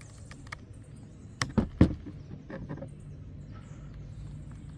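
A few sharp clicks and knocks from hand-threading a small nut onto a screw in a plastic cover, with the loudest cluster just under two seconds in.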